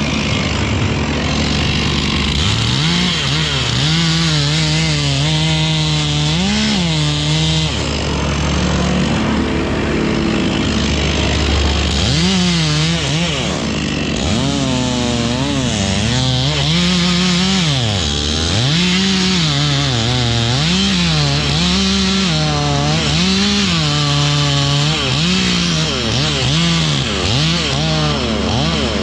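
Two-stroke chainsaw cutting wood, its engine pitch rising and falling about once a second as the throttle and load change, over a steady lower engine drone.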